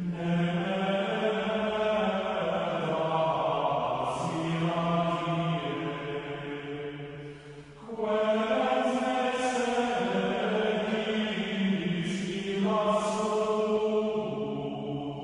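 Background music of choral chant: voices holding long notes that step from pitch to pitch, in two long phrases with a brief break about eight seconds in.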